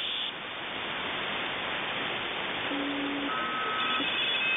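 Shortwave radio receiver static: a steady hiss with faint whistling tones that come and go, a low one near the middle and several higher ones toward the end.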